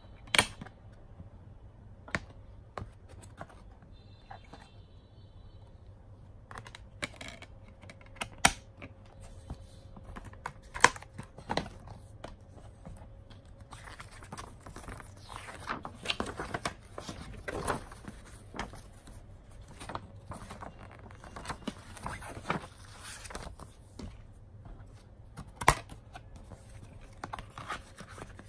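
Hands handling a clear plastic DVD case, its disc and paper booklet: a few sharp plastic clicks and snaps, the first as the disc is pressed at its centre hub, with a longer spell of paper rustling and sliding in the middle as the booklet is handled and put back into the case.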